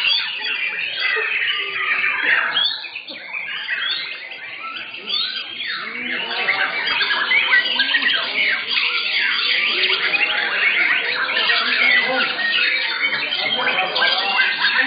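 Many caged white-rumped shamas (murai batu) singing at once: a dense, overlapping chorus of whistled phrases and chatter that thins briefly about three seconds in.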